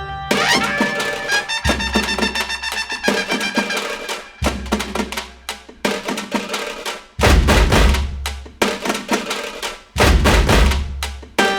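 Background music: drums and percussion striking in a rhythm over pitched instruments, with a heavy bass coming in about halfway through and again near the end.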